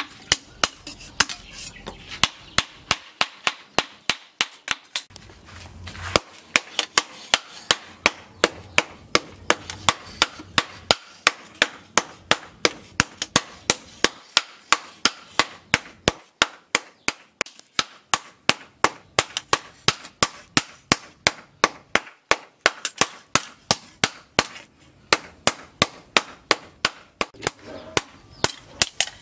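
Hand hammer striking a steel knife blade cut from a tractor disc on a small steel post anvil: a rapid, steady run of sharp metallic blows, about three a second.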